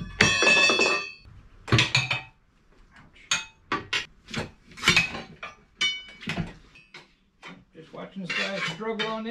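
Metal clanking and ringing from a manual tire changer and its steel bar as a tractor-tread tire is forced onto a lawn mower rim: a loud ringing clang just after the start, then a string of sharper clanks and knocks. A man's voice comes in near the end.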